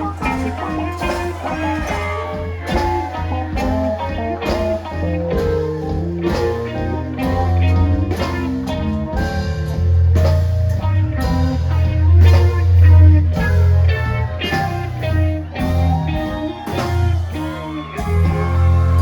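Live rock band playing an instrumental passage: drums keeping a steady beat under a heavy bass line and electric guitar. The band drops out briefly near the end and comes back in louder.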